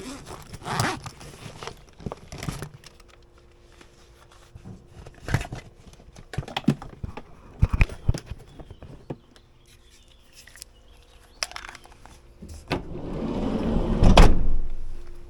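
Irregular knocks, thuds and clicks, like doors and gear being handled, over a faint steady hum; near the end a rushing noise swells up and stops abruptly.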